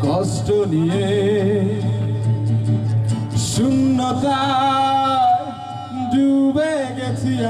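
Male singer performing a Bengali song live into a microphone over band accompaniment, wavering with vibrato and holding long notes.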